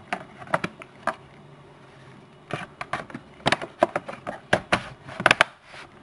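Plastic RAM access door on the underside of a Fujitsu LifeBook AH530 laptop being pressed back into place by hand: a string of sharp clicks and taps, sparse at first, then quicker and louder in the second half, with a quick double click near the end.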